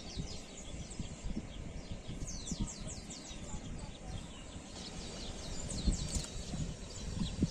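Wind rumbling on the microphone, with small birds chirping in quick falling notes that come in two bursts, about two seconds in and again around six seconds in.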